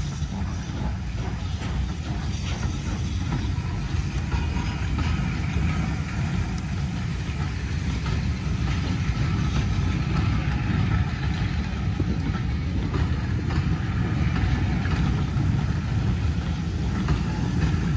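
Passenger coaches of a steam-hauled train rolling past: a steady rumble of wheels and bogies on the rails with faint clicks, growing slightly louder toward the end.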